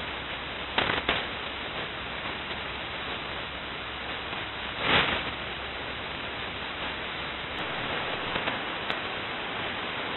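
Shortwave receiver hiss in upper-sideband mode: steady HF band noise with no voice on the channel. It is broken by a few short static crackles about a second in and a louder crash about five seconds in.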